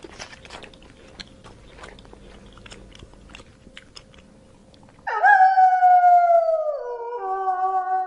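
A young giraffe chewing, with soft crunching and clicking. About five seconds in, a wolf howl takes over: one long, loud, clear call that slides slowly down in pitch and drops to a lower note near the end.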